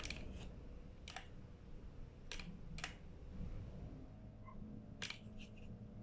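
Buttons on a plastic garage-door remote clicking as they are pressed to copy its code into a universal duplicator remote: about five short, sharp clicks at irregular intervals, with a couple of fainter ticks after the last one.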